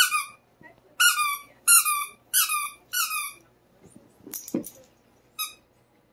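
A dog chewing a rubber squeaky toy while rolling on its back: a run of short, high squeaks, each dipping a little in pitch, about two a second for the first three seconds. A brief low sound comes about four and a half seconds in, then one last squeak.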